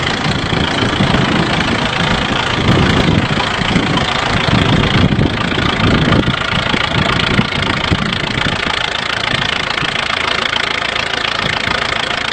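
Engine of an old engine-driven welding machine running steadily, a little quieter in the second half.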